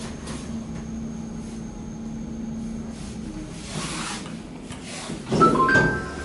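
KONE MonoSpace traction lift car travelling with a steady low hum that fades out as the car slows and stops about three to four seconds in. Just after five seconds comes a louder clatter with a short chime of a few high notes as the car arrives and the doors begin to open.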